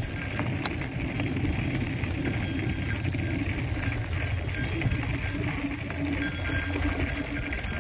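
Mountain bike rolling down a loose dirt singletrack: steady rumble of knobby tyres on dirt and the bike's parts rattling over bumps, with wind on the microphone.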